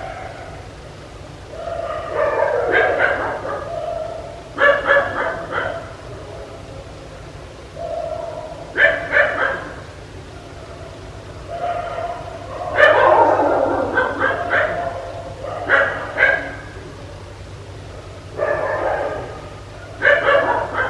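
A dog barking in repeated bouts of several quick barks each, a few seconds apart, over a steady low hum.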